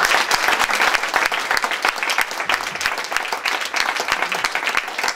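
Audience applause: many people clapping steadily, dense and even, ending as speech resumes.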